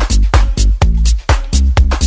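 Dance-pop music with a steady, evenly spaced beat over a heavy bass line.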